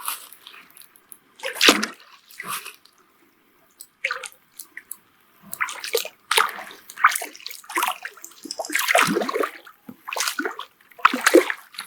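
Water splashing and sloshing in uneven bursts as a hooked carp thrashes at the surface near the bank while being drawn to the landing net.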